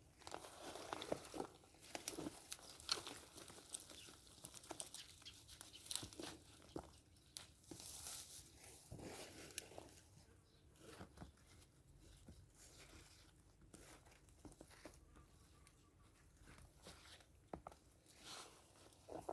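Faint irregular rustling, crunching and tearing of soil and plant stems being handled during a potato harvest, busy in the first half and sparser in the second.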